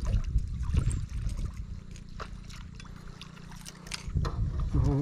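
Water splashing and trickling beside a small fishing boat, with scattered sharp clicks and light knocks over a steady low rumble.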